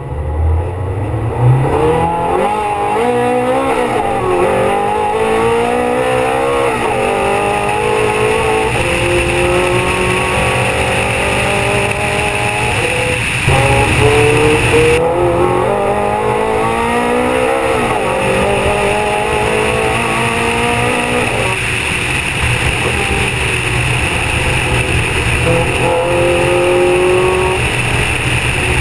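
Ferrari 430 Scuderia's 4.3-litre V8 pulling hard up a hill. The engine note climbs with the revs, then drops sharply at each of several quick gear changes, and climbs again. It is heard with rushing wind from outside the car.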